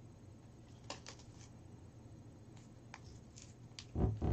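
Small paper lottery slips being handled, with faint rustles and light clicks scattered through, then a louder low thump about four seconds in.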